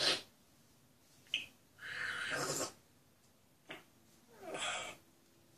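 Pet parrot making a series of short breathy, hissing noises, about five of them, the longest lasting under a second; no whistled notes.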